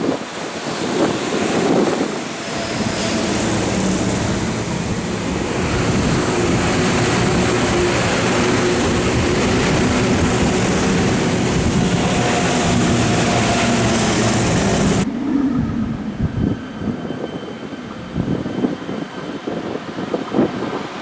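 Tokyu 8500 series electric train running, its traction motors giving a loud steady whine over wheel-on-rail noise. About fifteen seconds in, the sound cuts sharply to a quieter, duller rumble with a faint high whine.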